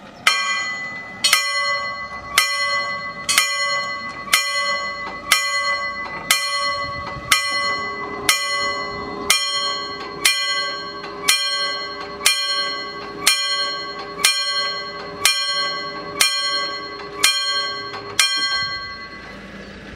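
Railway level crossing warning bell striking about once a second, each stroke ringing on and dying away, about eighteen strokes in all: the crossing is warning of an approaching tram. The bell stops shortly before the end.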